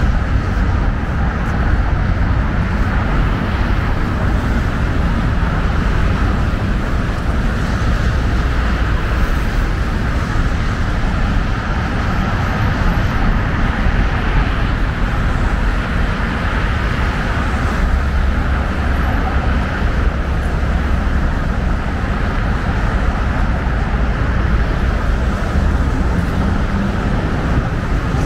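Steady road traffic noise, a continuous rumble of passing vehicles with no single sound standing out.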